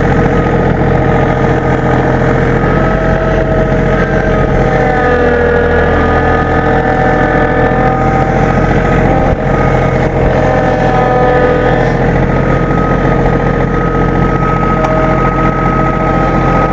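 A vehicle engine running steadily, its pitch drifting gently up and down.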